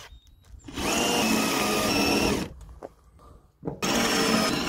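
Cordless drill running in two bursts about a second apart, a steady whine as the bit bores into a ribbed metal sheet to make rivet holes.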